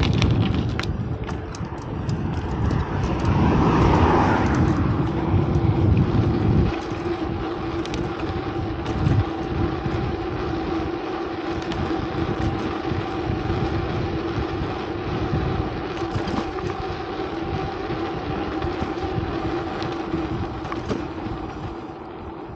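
A vehicle running with a steady hum over continuous traffic-like noise. A heavy low rumble cuts off abruptly about seven seconds in.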